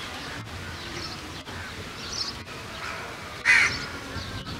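A crow gives one loud, harsh caw about three and a half seconds in. Faint chirps of small birds come before it.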